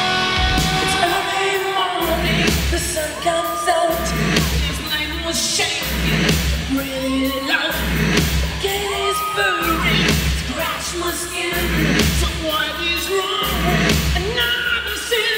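Rock music with singing over electric guitar and a steady drum beat.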